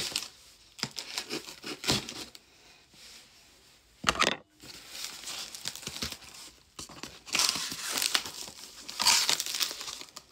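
Cardboard shipping box being opened by hand, with scissors at the tape: irregular tearing, crinkling and rustling of cardboard and packaging. There is a sharp loud noise about four seconds in, and louder rustling bursts later on.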